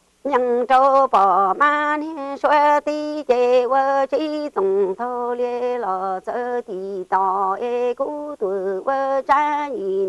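A single voice singing a slow, chant-like melody: long held notes with a slight waver, stepping between a few pitches and broken by short pauses for breath.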